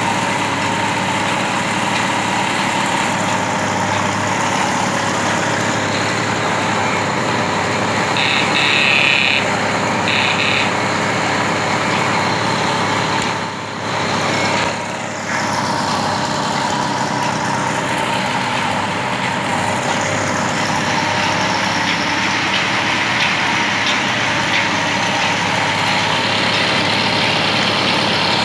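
Hero Majestic moped's small single-cylinder two-stroke engine running steadily at idle. A short high-pitched tone sounds twice, back to back, about eight seconds in, and the engine sound dips briefly twice around the middle.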